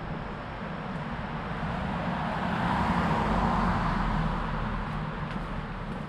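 A car drives past on the street. Its engine and tyre noise swells to a peak about three seconds in and then fades, over a steady city traffic hum.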